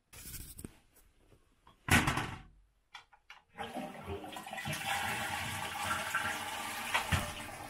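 Toilet flushing: a few clicks and one sharp knock come first, then about three and a half seconds in the steady rush of water starts and carries on.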